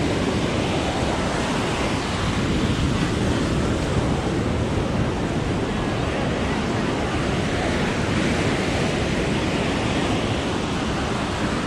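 Ocean surf washing onto the beach, mixed with wind rumbling on the microphone: a steady rush of noise without any distinct break.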